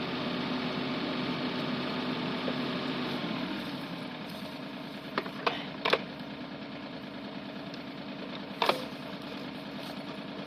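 A machine's motor running steadily. It eases down a little about three and a half seconds in, with a few sharp knocks around the middle and one more later.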